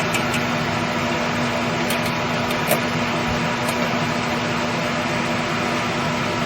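Steady whirring hiss with a low hum, like a fan or similar small machine running, with a couple of light clicks between two and three seconds in.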